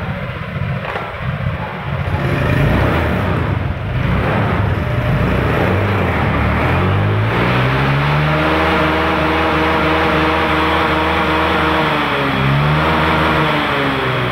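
Honda Vario 150 scooter's single-cylinder engine running and being revved on the throttle. Its pitch climbs about eight seconds in, holds, then dips and rises again near the end.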